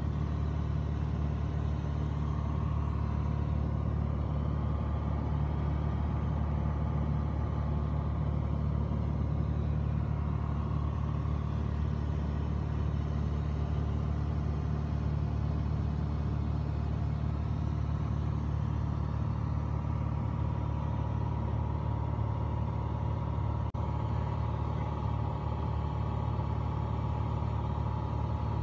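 Steady drone of a Piper Dakota's Lycoming O-540 six-cylinder engine and propeller in cruise flight, heard inside the cabin, with a low hum and a fainter steady whine above it.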